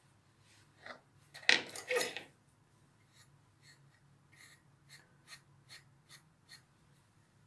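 Grooming brush raking through a dog's long coat in short strokes, about two to three a second. A louder, rougher double burst about a second and a half in is the loudest sound.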